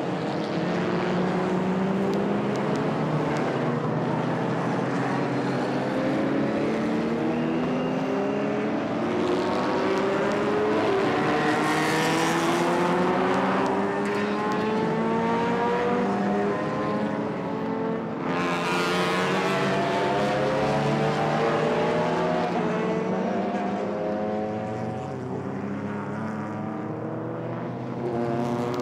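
Several racing car engines accelerating, their notes rising in pitch and overlapping. Two cars pass close by with a loud rush, about twelve seconds in and again about six seconds later.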